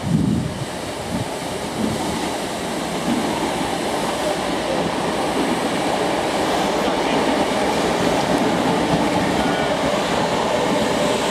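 Great Northern-branded electric multiple unit running past on the tracks, a steady rumble of wheels on rails that grows slightly louder, with a few low thuds in the first couple of seconds.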